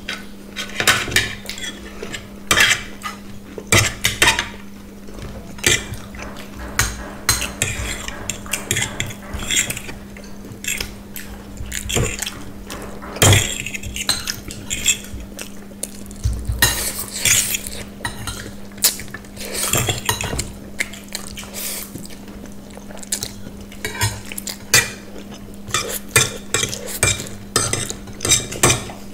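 Metal spoon and fork clinking and scraping against plates while eating noodles and rice, in many short irregular clicks, over a steady low hum.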